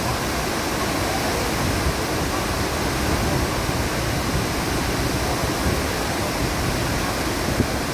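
Waterfall: water pouring down in a constant, unbroken rush.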